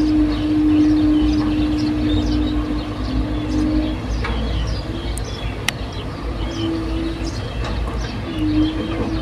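Excavator's diesel engine running with a steady hum over a low rumble; the hum dips slightly in the middle, and there is one sharp click a little past halfway. Short high chirps run throughout.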